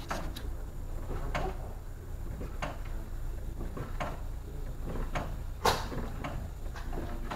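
Irregular metallic clunks and knocks from a truck cab being rocked, about seven of them with the loudest near the end, over a steady low hum. The knock is being traced under the cab, with worn cab locks as the driver's suspect.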